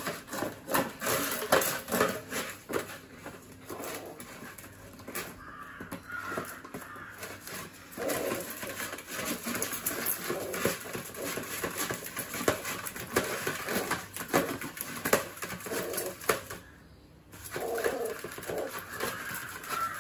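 A puppy's paws and claws scrabbling inside a plastic tub, knocking and scraping it on a tiled floor in a rapid, irregular run of clicks and scrapes.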